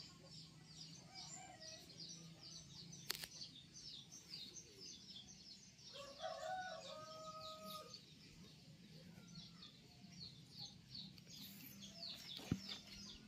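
Small birds chirping rapidly and continuously. About six seconds in, a chicken gives a lower call lasting about a second and a half.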